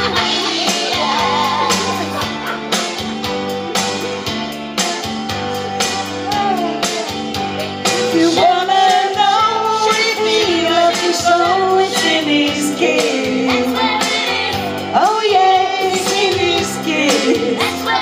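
Two women singing karaoke through microphones and a PA over a pop backing track with a steady beat.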